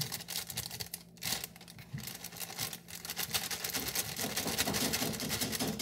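Thin plastic bag crinkling and crackling in rapid small clicks as it is handled and shaken to empty dry cake mix into a mixing bowl.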